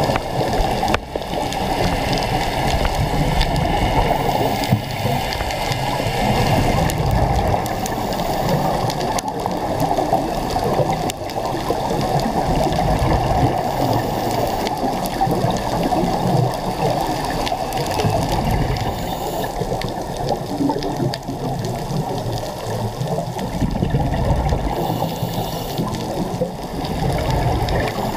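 Muffled underwater rushing and gurgling, picked up by a camera in its waterproof housing. The noise is dense and low, with uneven surges through the whole stretch.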